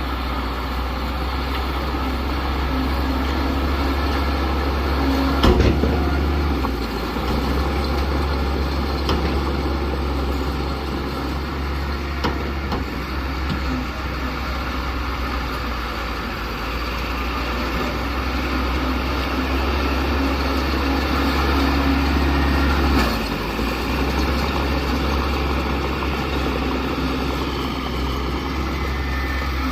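Heavy diesel engine of earthmoving machinery running steadily with a deep rumble, broken by two sharp metallic knocks about 18 seconds apart.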